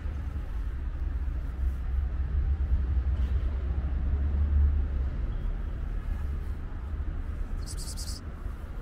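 Low outdoor rumble that swells about halfway through and then eases, with a brief high hiss near the end.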